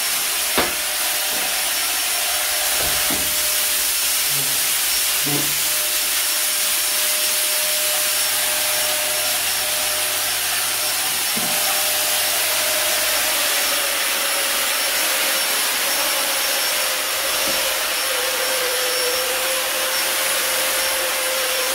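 Portable electric disinfectant fogger running steadily, its blower hissing out a mist of disinfectant like a vacuum cleaner in reverse. A faint motor whine under the hiss drops slightly in pitch a little past halfway.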